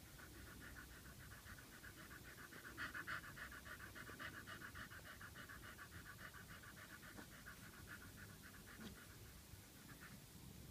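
Adult Staffordshire Bull Terrier panting quickly and faintly in a fast, even rhythm. The panting stops about ten seconds in.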